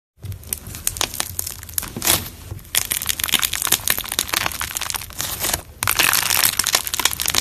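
Crunchy slime being worked, giving dense, rapid crackling and popping, with brief lulls about two and a half seconds in and again near six seconds.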